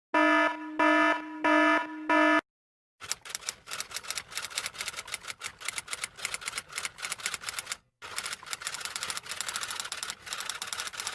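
A buzzer-like electronic alarm sounding four pulsing beeps, then rapid clicking of typing keys that runs for several seconds, pauses briefly and carries on.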